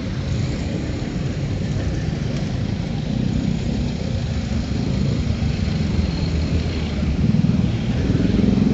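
City road traffic on a wet street: cars and motorbikes running and moving past as a steady low rumble with a light hiss, swelling louder near the end.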